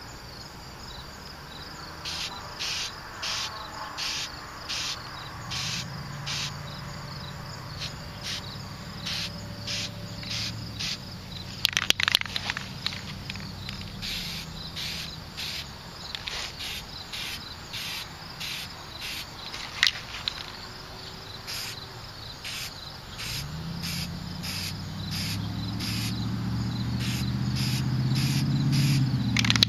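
Crickets chirping in a steady rhythm, about two chirps a second. A low hum comes and goes underneath and swells near the end.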